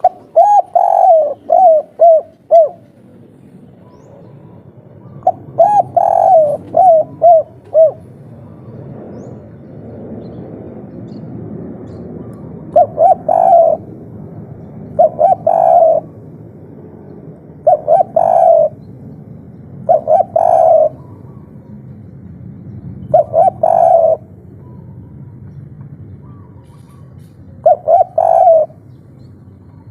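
Spotted dove (tekukur) cooing its 'kuk 3' song. Two longer runs of about five coos come near the start, then short phrases of two or three coos every two to three seconds.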